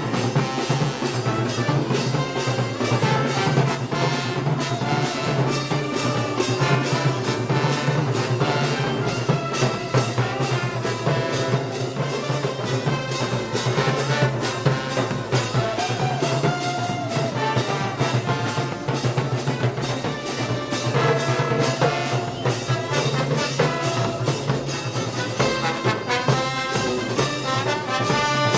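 Brass band with drums playing Moros y Cristianos festival march music, trombones and trumpets over a steady, even drum beat.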